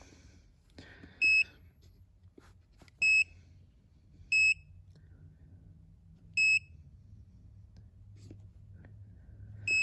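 Handheld OBD-II scan tool beeping as its buttons are pressed while reading trouble codes: five short, high-pitched beeps at uneven gaps, over a faint low hum.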